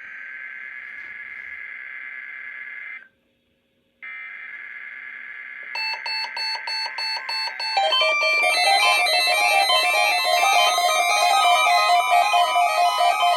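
Intro music: a steady high electronic tone that breaks off for about a second and comes back, then rapid beeping at about four a second, then full electric-guitar music about eight seconds in.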